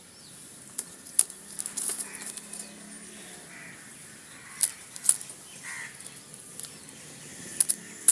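Pigeons at close range, with several sharp snapping sounds scattered through, loudest about five seconds in.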